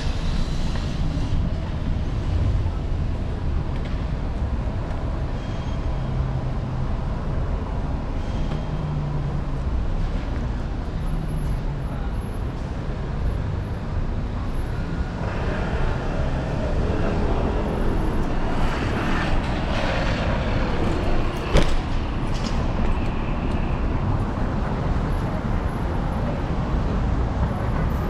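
City street traffic heard from a moving electric scooter, over a steady low rumble of wind and road vibration at a handlebar-mounted microphone. The sound gets busier for several seconds past the middle, and there is one sharp click a little later.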